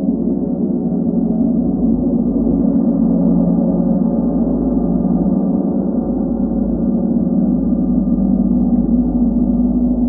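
A 40-inch chau gong played continuously with two felt-headed mallets, giving a steady, sustained wash of many overlapping tones in which no single strike stands out.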